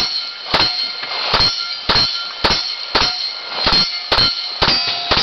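A string of about ten rifle shots fired one after another, roughly two a second at a slightly uneven pace, some followed by a short metallic ring.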